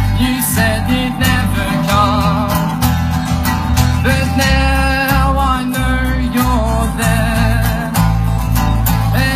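A live band playing a country-style song: guitar, a steady bass line and drums, with a wavering melody line on top.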